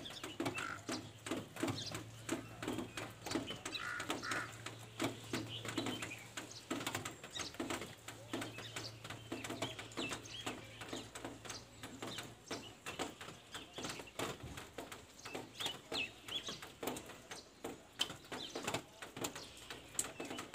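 Birds calling: many short, low, repeated calls with a few higher chirps. A steady low hum runs under them for the first half and stops a little past the middle.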